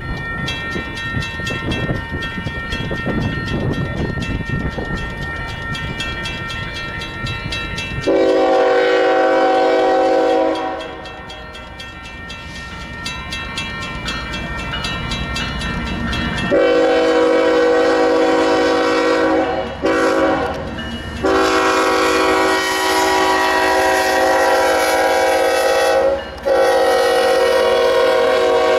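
Union Pacific diesel locomotive horn sounding the grade-crossing signal as the train approaches: two long blasts, a short one, then long blasts held as the locomotives reach the crossing. Before the first blast a steadier, higher ringing tone sounds over the low rumble of the approaching train.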